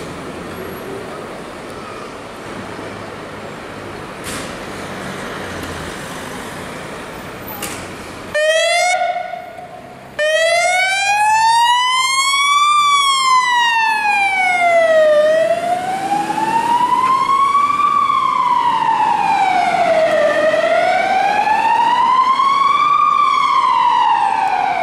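Street traffic noise, then about a third of the way in a fire engine's Federal Signal siren starts with a short steady blast. After a brief drop it goes into a slow wail, rising and falling about every five seconds.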